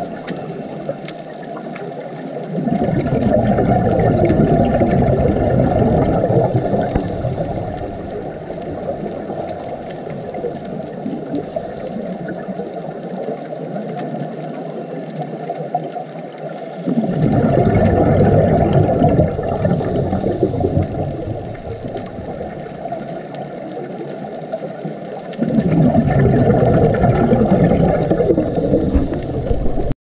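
Muffled underwater rumble heard through a diver's camera, with three louder surges of bubbling a few seconds long, about eight to ten seconds apart: a scuba diver breathing out through the regulator.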